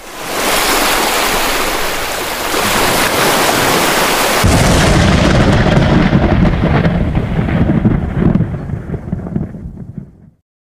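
Explosion sound effect for a video intro: a loud rushing noise swells up within the first half-second, then about four and a half seconds in a deep boom hits and rumbles on, dying away near the end.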